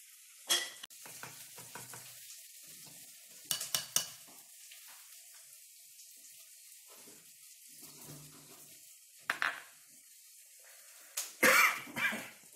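Kitchen handling sounds: a few short clinks, knocks and rustles from a plastic flour packet and a stainless steel mesh sieve over a glass bowl as flour is poured in for sifting. The loudest cluster comes near the end.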